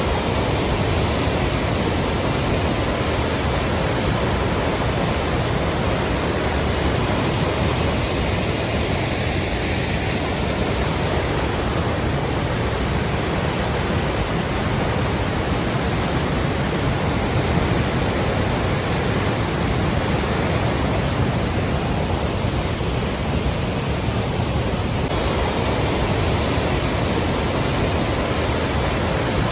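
Water rushing steadily in a continuous, even roar of flowing water.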